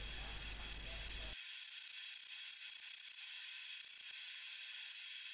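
Faint steady hiss.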